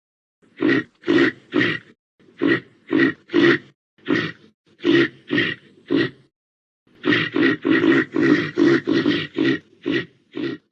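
Reindeer grunting: short grunts in quick groups of about three, then a faster run of about a dozen near the end.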